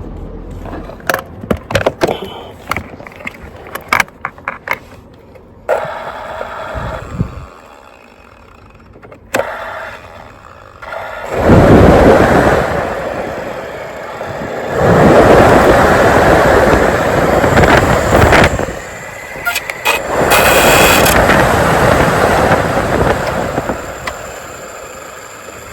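Clicks and knocks of a wiring connector being handled, then a Ford F-150 HVAC blower motor, out of its housing, running with a loud rush of air in three stretches of a few seconds each and dropping away in between. It cuts in and out because of a loose connection at the connector.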